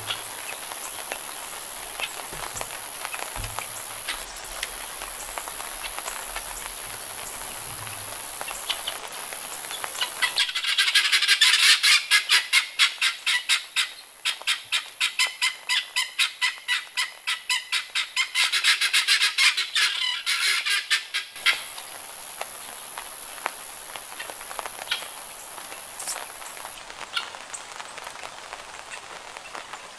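Guinea fowl calling in a fast run of harsh, repeated notes, about four a second, for roughly ten seconds in the middle, over the steady hiss of summer rain.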